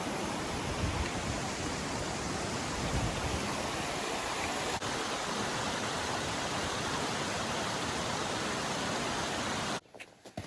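Mountain waterfall: a steady, even rush of falling water. It cuts off abruptly near the end, leaving a few faint clicks.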